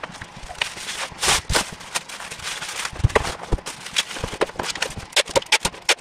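Bubble wrap being handled and pulled from its roll: crinkling plastic rustle with many sharp clicks and crackles, loudest in a couple of rustles about a second in.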